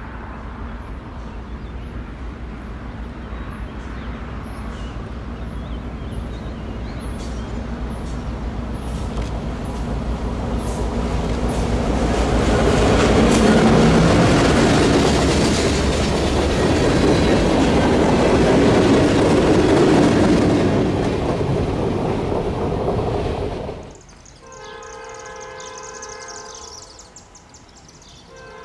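Norfolk Southern freight with EMD GP38-2 and SD40-2 diesel locomotives approaching and passing close by, with two-stroke diesel engine and wheel noise building to a loud peak. It then cuts off abruptly. After the cut, a distant locomotive horn sounds one long blast of about two seconds, and a short note follows near the end.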